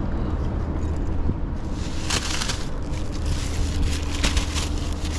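Thin plastic bag crinkling and rustling as it is handled, starting about a second and a half in, over a steady low rumble.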